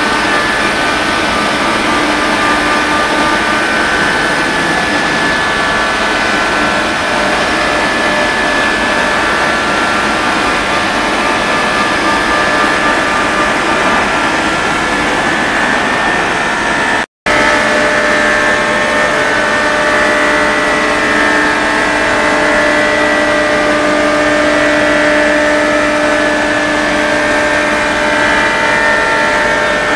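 CNC woodworking machining centre's router spindle running at high speed as it machines a wooden board, a steady loud noise carrying several high whine tones. The sound cuts out for a moment just past halfway.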